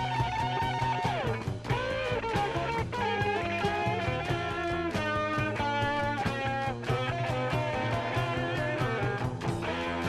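1970s heavy psychedelic blues-rock recording: a lead electric guitar holds a long note that bends down about a second in, then plays quicker runs of notes over bass and a steady beat.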